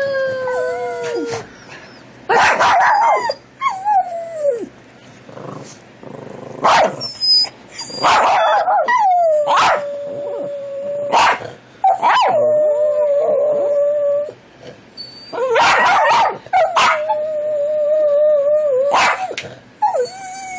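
A dog howling, several times, in long drawn-out notes, some held for a couple of seconds and one wavering, between shorter sharp barks and yips.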